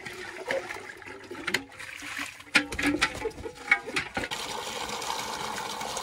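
A few knocks and clanks as a cooking pot is set down under an outdoor tap. About four seconds in, tap water starts pouring steadily into the pot.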